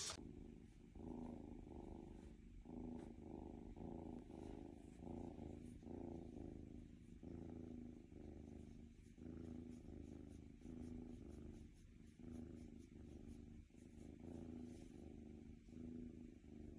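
A tabby kitten purring quietly and continuously, in pulses with short breaks between them, while it is stroked under the chin and on the head.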